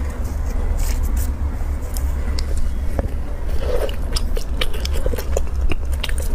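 Close-miked eating of a soft chilled bun with a chocolate filling: plastic film crinkling as the bun is lifted off, then a bite and chewing with many small mouth clicks. A steady low hum runs underneath.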